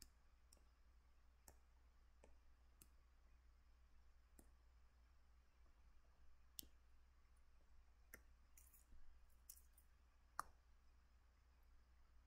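Near silence with about a dozen faint, irregularly spaced clicks from a computer input device as lines are drawn digitally, over a low steady hum.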